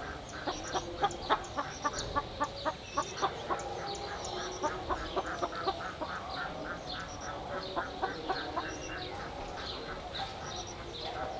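Domestic poultry calling: a run of short calls repeated several times a second, thickening toward the middle.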